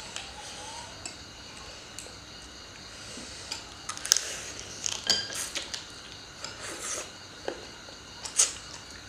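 Chopsticks clicking and scraping against ceramic plates and a serving platter while two people eat shredded papaya salad, with mouth sounds of eating between. The clicks come irregularly, the sharpest about four, five and eight and a half seconds in.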